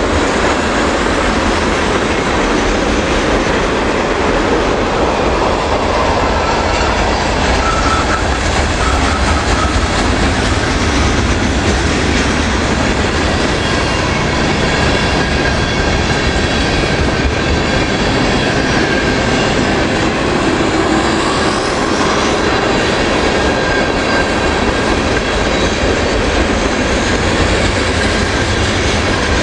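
Freight train's tank cars and covered hopper cars rolling past close by, steel wheels running continuously on the rails, with faint steady squealing tones from the wheels.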